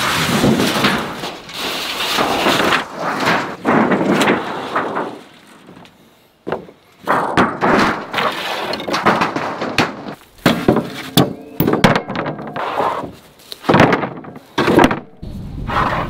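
Rough-sawn boards being pulled off a lumber stack and dropped, with repeated wooden thunks and clatters and boards scraping over each other, while old sheet-metal roofing is lifted off the pile. The handling pauses briefly about halfway.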